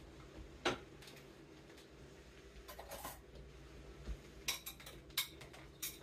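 Faint, scattered clinks and knocks of dishes and utensils handled at a kitchen counter while food is plated: one sharp clink under a second in, a few soft knocks around the middle, and a quick run of clicks in the last two seconds.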